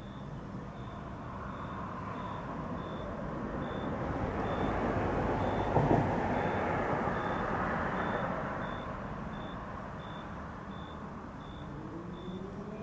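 A vehicle passes on the street, its noise swelling to a peak about six seconds in and then fading, while a high-pitched beep repeats steadily about every 0.7 seconds, like a vehicle's reversing alarm. Near the end an engine tone rises in pitch as a vehicle speeds up.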